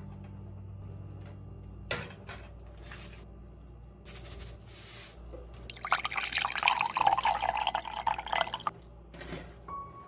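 Coconut milk poured from a can into a frying pan: a splashing pour of about three seconds, starting about six seconds in. A single sharp knock about two seconds in.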